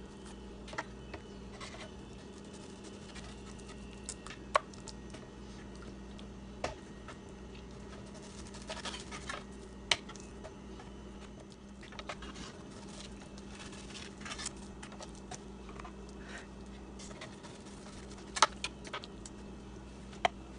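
Scattered sharp taps and knocks of a kitchen knife and hands on a wooden cutting board as raw chicken breasts are cut and moved about, over a steady low hum.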